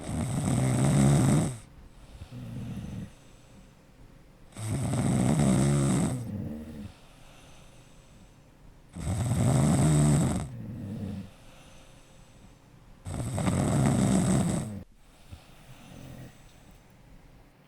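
Dog snoring in its sleep: four loud snores about four seconds apart, each followed by a quieter, shorter breath.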